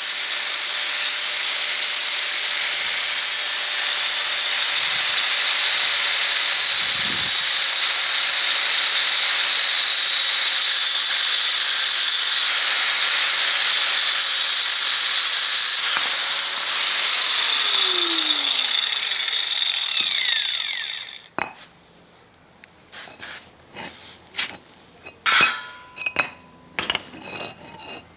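Ozito angle grinder with a diamond blade cutting into a clay brick, running steadily with a high whine. About 17 seconds in it is switched off and spins down with a falling whine. It is followed by light clinks and knocks as the cut brick pieces are handled.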